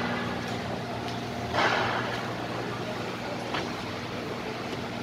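Car service workshop background: a steady low machine hum, with a short hissing rush about one and a half seconds in and a light click a little later.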